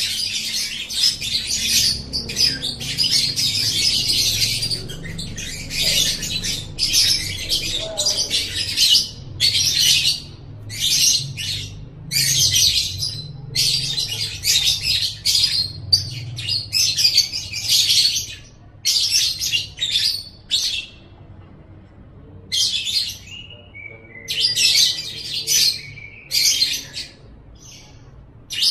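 Lovebird 'ngekek' song: long runs of rapid, high-pitched chattering. The chatter is near-continuous at first, then breaks into shorter bursts of a second or two with pauses toward the end.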